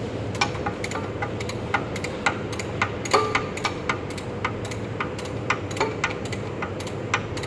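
Rapid, uneven clicking and ticking, several clicks a second, some with a short ringing tone, over a steady low hum.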